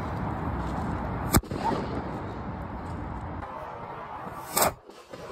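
Two homemade black-powder firecrackers, made without aluminum, exploding with sharp bangs about three seconds apart.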